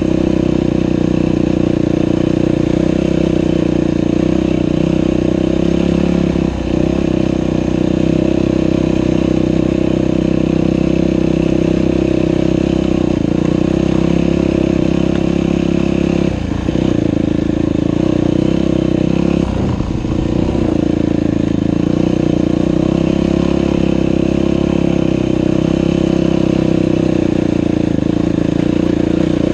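Dirt bike engine running steadily, loud and close, with brief drops about six, sixteen and twenty seconds in.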